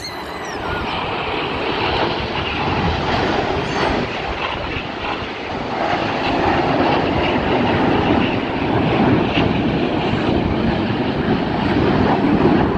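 Red Arrows' BAE Hawk T1 jets flying past in formation: a steady jet roar that grows louder toward the end.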